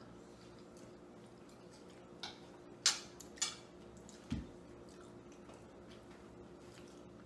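Metal forks set down on china plates: three sharp clinks a little after two seconds in, then a dull thump on the table about four seconds in, over quiet room tone.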